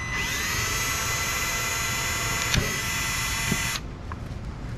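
Electric drill running, its whine rising as the motor spins up, boring a hole through a plastic dash bezel. A click comes about two and a half seconds in, and the drill stops near four seconds.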